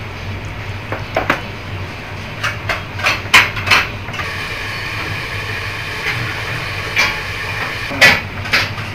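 Small-restaurant ambience: a steady low hum with scattered sharp clinks and knocks of dishes and chopsticks. The clinks come in small clusters, loudest about three and a half seconds in and again near the end.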